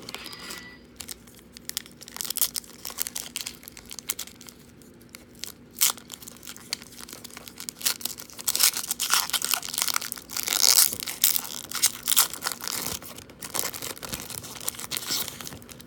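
Foil wrapper of a Donruss football card pack being torn open and crinkled by hand: an irregular run of crackles and rustles that grows busier and louder in the second half, peaking about ten seconds in.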